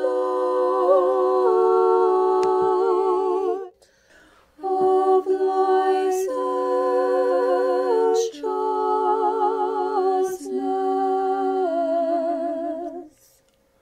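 Unaccompanied church choir singing Orthodox chant in several-part harmony, in long held phrases with a short breath pause about four seconds in.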